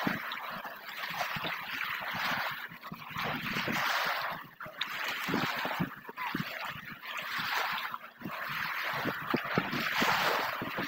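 Sea water washing and sloshing in repeated surges, rising and falling every second or two, with small splashes and knocks.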